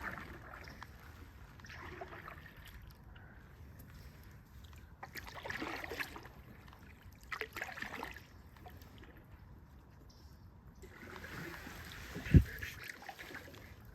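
Canoe paddles dipping and pulling through the water, a splashing stroke every couple of seconds. A single sharp low thump about twelve seconds in is the loudest sound.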